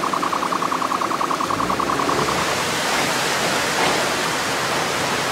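Heavy torrential rain pouring down, a loud steady rushing hiss. For the first two seconds or so a high beep pulses rapidly over it, then stops.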